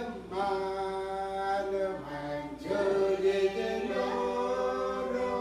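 Intro music: voices singing long held notes in an a cappella, choir-like style, with short breaks between phrases.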